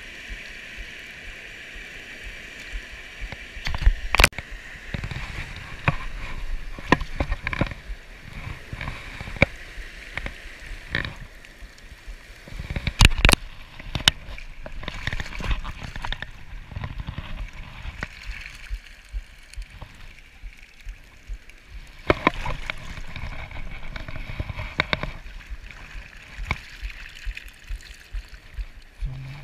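Shallow stream water rushing and gurgling, with splashing and sloshing as a dip net is swept through it and lifted out. A few sharp knocks stand out, the loudest about four and thirteen seconds in.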